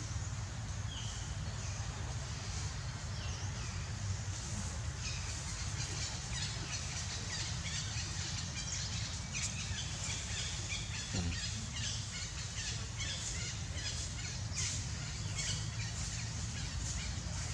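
Many short, high chirps and squeaks from small animals, growing denser about five seconds in, over a steady low rumble of background noise.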